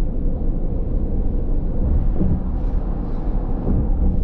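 Steady road and engine noise inside the cabin of a moving minivan, heavy in the low end.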